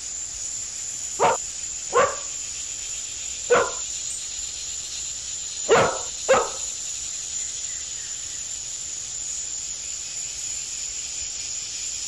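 A dog barking five times, single short barks spaced out over the first half, the last two close together, over a steady high hiss.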